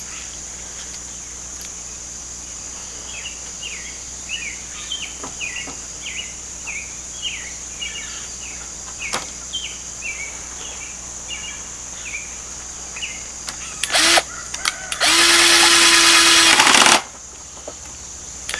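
A cordless drill driving a 1-inch drywall screw: a brief blip of the motor near the end, then a second later two seconds of steady running as the screw goes in. Before that there are birds chirping in short repeated notes over a steady high insect drone.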